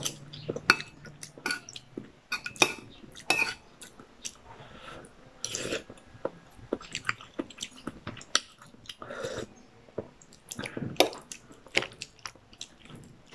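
A person chewing a spoonful of soft papaya and chicken from tinola soup, with irregular wet mouth clicks and the occasional clink of a metal spoon.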